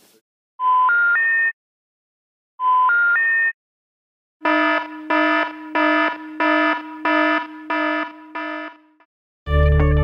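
Telephone 'special information' tone, three rising beeps like the one before a 'number not in service' message, played twice. Then a buzzy alarm tone pulses about eight times. Guitar music starts near the end.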